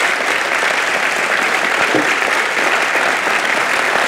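Audience applauding steadily, a dense even clapping with no breaks.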